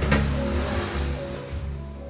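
Background music with held notes and a heavy bass, with a sharp click right at the start.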